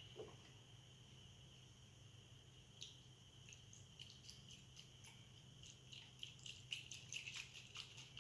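Faint fizzing and crackling of baking soda and vinegar foaming in a mini volcano: scattered tiny pops about three seconds in that grow denser near the end, over a low steady hiss.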